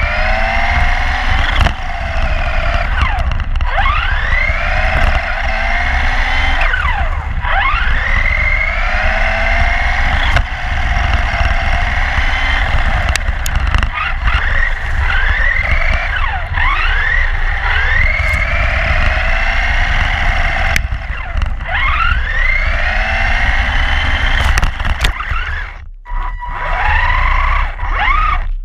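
Electric RC car's motor whining, its pitch sweeping up again and again as it accelerates, over a heavy wind rumble on the car-mounted camera. The sound drops out briefly near the end.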